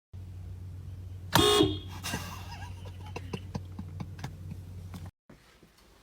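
Handheld air horn blasting once, loud and short, about a second and a half in, over a low steady hum. Small knocks and clicks follow, and the sound cuts off near the end.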